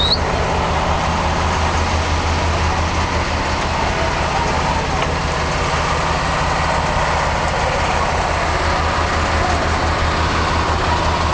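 Diesel locomotive of a standing passenger train idling, a steady low rumble with a fast, even throb.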